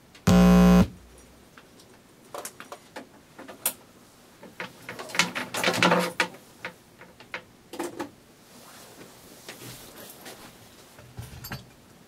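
A short, loud electronic tone about half a second long that cuts off sharply, followed by scattered clicks and rustles.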